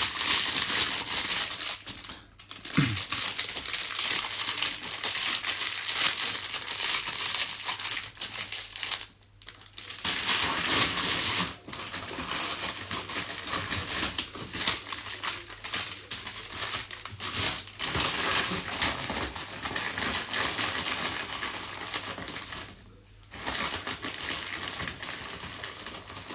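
Packaging being handled and crinkled in a steady crackling run, broken by a few short pauses.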